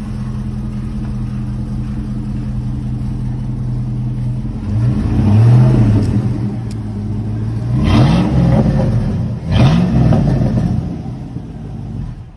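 2003 Chevrolet Silverado's 5.3-litre LS V8 through a Flowmaster exhaust, idling steadily and then revved three times, each rev rising and falling back to idle.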